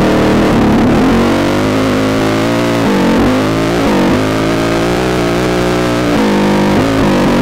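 Racing dirt bike engine running hard at high revs under the rider. The pitch drops sharply and climbs back about four times, around three, four, six and seven seconds in, as the throttle is chopped or a gear is changed.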